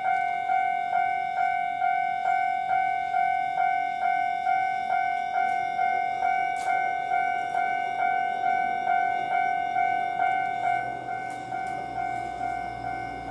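Japanese railroad crossing warning alarm sounding, a ringing tone struck about twice a second without a break. A low rumble of an approaching Kintetsu train rises under it in the last few seconds.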